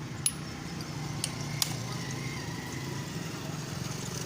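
Steady low hum of passing road traffic, with three short sharp clicks about a third of a second, a second and a quarter, and a second and a half in.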